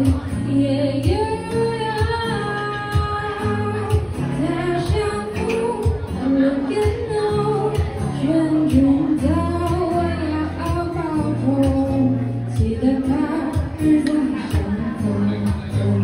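A woman singing a slow melody while accompanying herself on a steel-string acoustic guitar.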